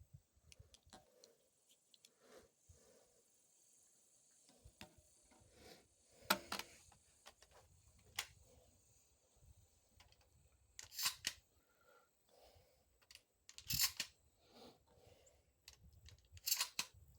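Mossberg 500 12-gauge pump shotgun being handled: four short bursts of sharp mechanical clicks and clacks a few seconds apart.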